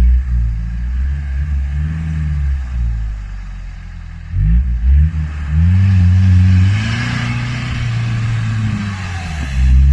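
Off-road vehicle's engine revving up and down unevenly, with quick throttle blips about halfway through followed by several seconds of held high revs, as when driving through rough terrain.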